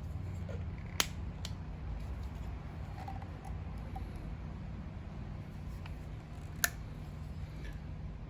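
Light clicks and taps of PVC pipe fittings being handled and turned into alignment during a dry fit, with two sharper clicks about a second in and near the end, over a steady low hum.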